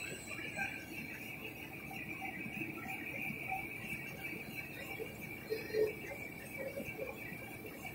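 Rotogravure printing machine running: a steady high whine over a low rumble, with a brief louder knock about six seconds in.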